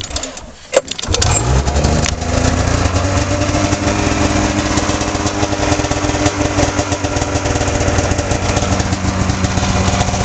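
2004 Arctic Cat F6 Sno Pro EFI snowmobile's 600 cc two-stroke twin, fitted with an aftermarket air intake kit, being started. A few clicks come first, then it catches about a second in and settles into a steady idle.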